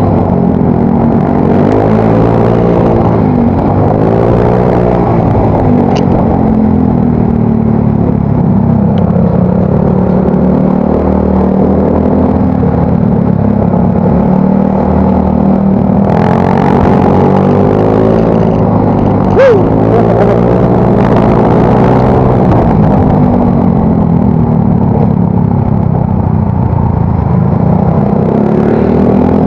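Yamaha Mio Soul GT scooter's engine running through its aftermarket exhaust while riding, its pitch rising and falling again and again with the throttle. A short tone sweeps up and back down about 19 seconds in.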